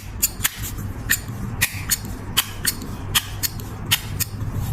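Metal flip-top lighter lid flicked open and snapped shut again and again: close pairs of sharp clicks, about one pair a second, over a steady low hum. The clicks lack the lighter's usual crisp ring, which the repairer puts down to the lid's spring leaf being bent to the wrong angle.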